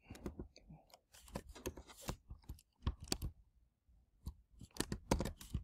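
Computer keyboard keystrokes and mouse clicks: a faint, irregular scatter of quick clicks while text is copied, pasted and selected.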